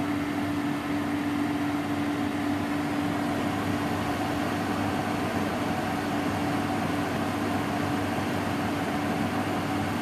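Homemade air conditioner running: a steady hum from its refrigeration compressor over the even rush of its fan moving air.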